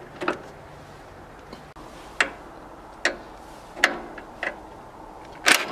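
About six separate sharp metallic clicks and knocks, a second or so apart, from a cordless impact driver and its socket being fitted onto and moved between steel motor-mount bolts. The loudest click comes near the end.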